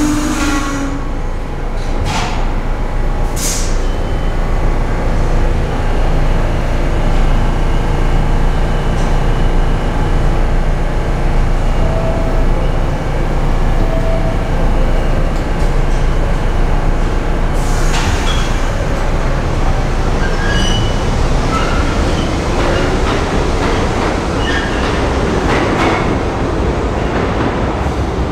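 New York City subway train running through an underground station: a loud, steady rumble of wheels on rail with occasional short squeals. In the second half a whine rises in pitch as another train comes into the station.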